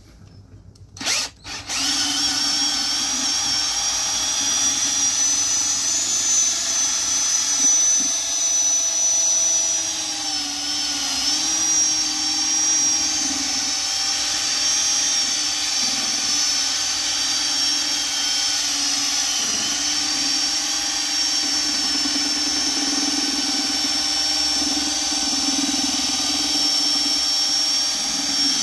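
Power drill with a mixing paddle running steadily, stirring 1-to-1 tabletop epoxy resin and hardener. It starts with a brief burst about a second in, then runs at a steady whine, sagging briefly in pitch about ten seconds in.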